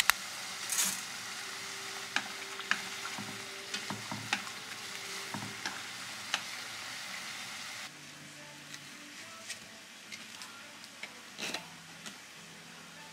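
Water boiling hard in a pan on a gas stove, with wooden chopsticks clicking against the pan as thin noodles are stirred. About eight seconds in this gives way to a knife slicing bell pepper on a plastic cutting board: a few scattered taps over a quieter background.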